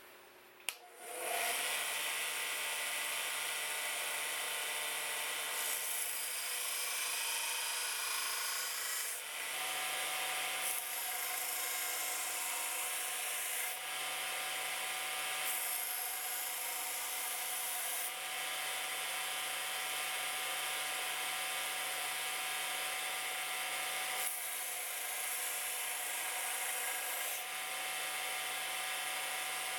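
A power tool starts up about a second in and runs steadily with a low hum, while wood is pressed against it and shaped with a rasping, rubbing sound that changes every few seconds.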